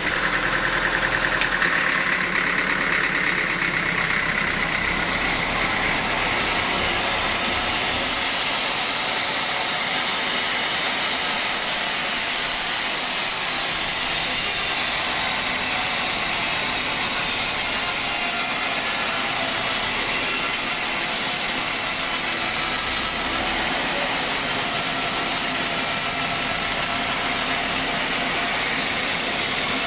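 Homemade sawmill's engine and saw running steadily, a continuous mechanical noise that gets a little brighter and hissier about a third of the way in.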